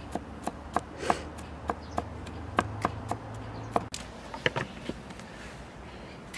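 Cooking utensils being handled: about a dozen irregular, sharp knocks and clicks, some with a brief ringing note. A low steady hum underneath stops a little past halfway.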